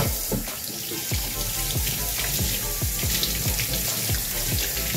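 Kitchen tap running into a stainless steel sink, the stream splashing over hands and a plucked quail being rinsed.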